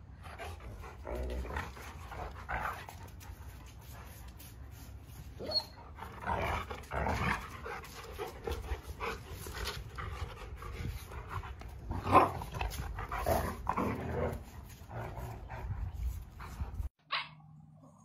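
Two Rottweilers play-fighting and growling and barking at each other. The sound comes in uneven runs, louder in a few stretches, and stops suddenly near the end.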